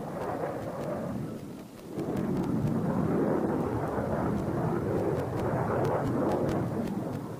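Jet aircraft engine noise, a steady low rush that grows louder about two seconds in.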